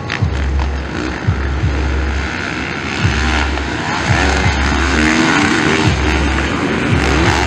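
Motocross bike engines racing, the throttle held open and then chopped about every second or so as the riders work through turns and jumps.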